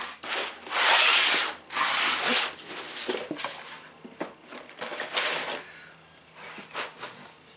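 Small 3D-printed plastic model parts being handled and moved about, with rustling and scraping and a few light clicks. The longest rustle comes about a second in.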